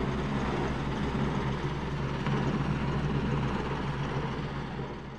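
Cormorant search-and-rescue helicopter hovering overhead, its rotor and turbine noise steady and loud, fading near the end.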